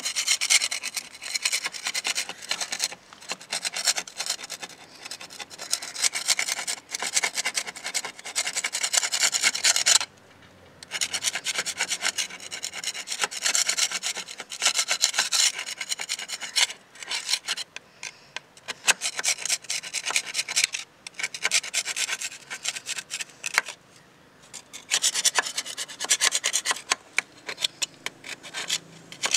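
A hand scraper scraping barnacle residue off a boat's painted metal bracket, in quick rasping strokes with a few short breaks. The barnacles have been softened with a barnacle remover, so they scrape off easily.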